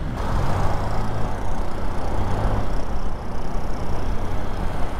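Motorcycle riding along at speed: a steady rush of wind on the camera microphone over engine and tyre noise, easing a little about halfway through.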